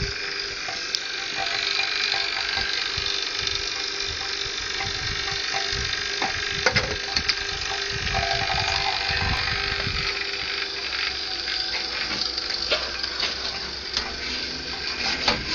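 Steady mechanical running noise with a constant hum and hiss, broken by scattered clicks and a few sharper knocks around seven seconds in and near the end.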